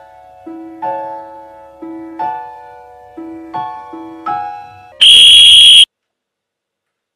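Gentle piano music, single notes and chords each struck and fading. About five seconds in it is cut off by a loud, shrill electronic beep lasting just under a second.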